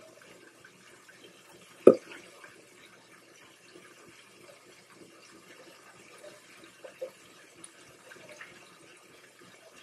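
Floured chopped steak patties frying in hot oil in a pan: a steady sizzle, with one sharp knock about two seconds in.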